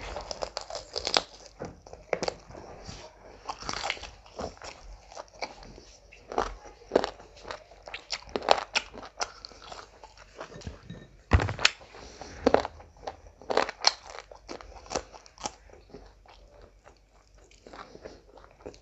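Close-miked eating: chewing and biting with wet mouth noises and irregular crunchy clicks, some bites louder than others, along with fingers mixing rice and curry on the plate.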